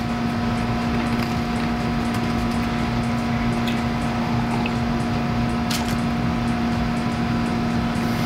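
Steady machine hum at one fixed pitch, with a few faint clicks.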